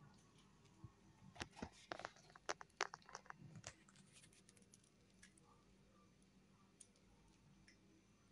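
Cat crunching dry kibble, a run of short sharp crunches and clicks starting about a second in and lasting about three seconds, then only a few faint ticks.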